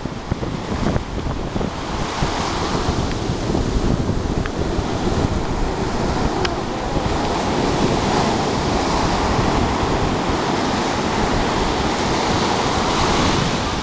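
Sea waves breaking and washing up the beach in a continuous surf, with wind buffeting the microphone.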